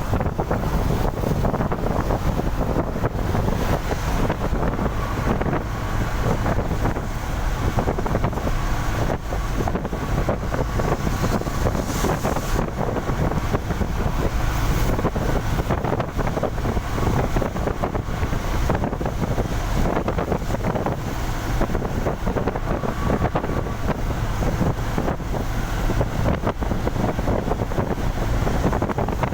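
Steady wind rush buffeting the microphone over the continuous noise of a vehicle travelling at speed.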